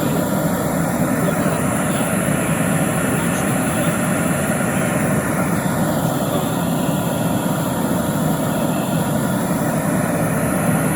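Gas brazing torch burning steadily with an even roar, heating the joints of a built-up model engine crankshaft for silver soldering.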